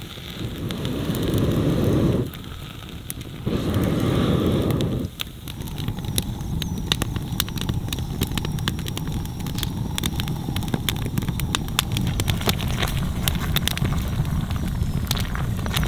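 Wood campfire crackling, with many sharp pops and snaps over a low steady rumble of flame. Near the start come two rushes of low noise, each about a second and a half long.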